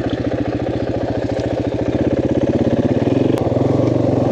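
KTM 500 single-cylinder four-stroke motorcycle engine running at low revs with an even, rapid beat of firing pulses, a little louder from about three seconds in.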